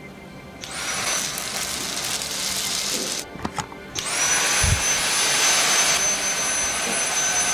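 Handheld vacuum cleaner motor switched on twice, each time spinning up quickly to a high whine over a steady rush of air. The first run stops after about two and a half seconds, and the second starts about a second later.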